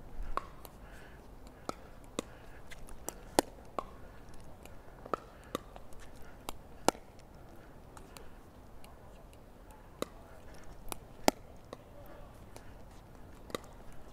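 A plastic pickleball hit back and forth over the net with paddles, in a slow lofted rally. Sharp pops of paddle on ball come every few seconds, with softer clicks between them.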